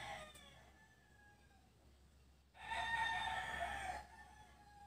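A rooster crows once: a single held call about a second and a half long, starting about two and a half seconds in.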